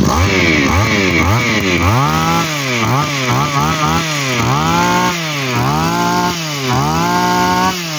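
Komatsu brush cutter's two-stroke engine being revved over and over, its pitch rising and falling back a little more than once a second, then dropping towards idle near the end.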